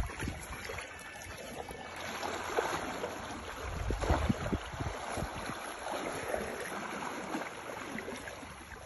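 Fast, shallow river current rushing and splashing around legs wading through it, with irregular low thumps.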